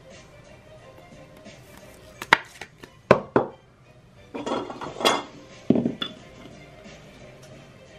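Trading card packs and cards being handled on a table: a few sharp taps and clicks, and a crinkling rustle of a pack wrapper about four and a half seconds in. Background music plays throughout.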